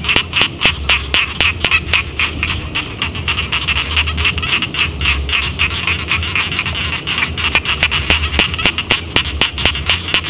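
A chorus of rice-paddy frogs calling: many short, sharp croaks overlapping, several a second, in a dense, unbroken chorus.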